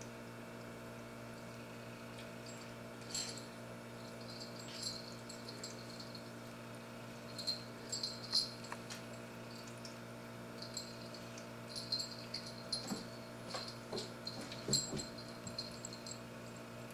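Faint, scattered scratches and taps from a cat pawing at a small toy and clambering over a carpeted cat tree, over a steady low hum.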